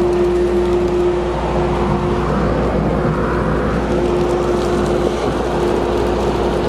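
Workshop dust collector running, sucking sawdust debris up through its flexible hose: a steady rush of air with a constant whine over a low hum.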